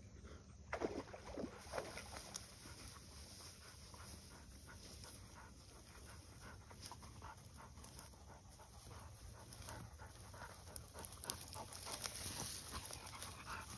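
Golden retriever panting with quick, repeated breaths while swimming in a pond.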